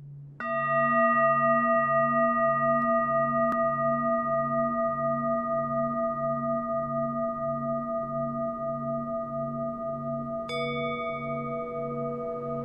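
Ambient background music: a low humming drone pulsing about one and a half times a second, with a struck metallic tone that rings on, struck once about half a second in and again near the end.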